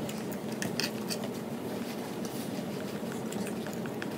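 Faint scrapes and light taps of a metal palette knife spreading acrylic paint on a small stretched canvas, over a steady low hum.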